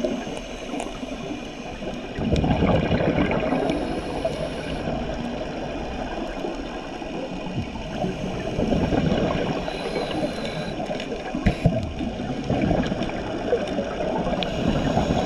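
Underwater ambience of gurgling bubbles from a scuba diver's exhalations, swelling in surges a few seconds apart over a steady low wash of noise.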